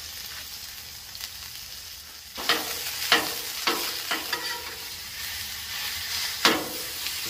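Ground elk sizzling on a hot Blackstone flat-top griddle. About two seconds in, a metal spatula starts chopping and scraping the meat against the steel plate, with several sharp clacks over the sizzle, the loudest near the end.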